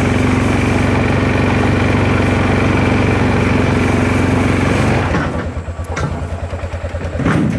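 Honda ATV engine running hard at steady throttle while towing a loaded cart up a steep hill. About five seconds in it is let off and drops to idle with a slow pulsing beat.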